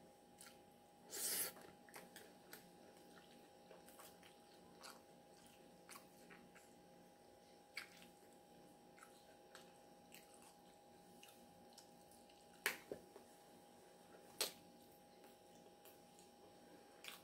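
Faint sounds of salad being eaten: soft mouth clicks of chewing throughout, a short crunch about a second in, and a few sharp clicks later on.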